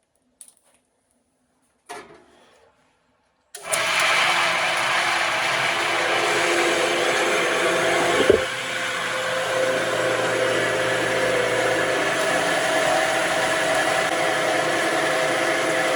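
Horizontal metal-cutting band saw switched on about three and a half seconds in, its motor and blade running steadily, with one sharp knock about eight seconds in.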